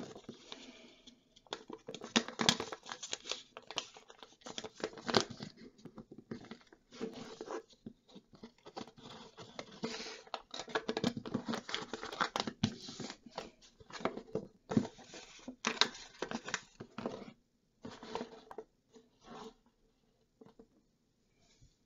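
A sheet of paper rustling and crackling as hands fold, invert and pull it open into an origami boat, in irregular bursts with sharp creasing clicks.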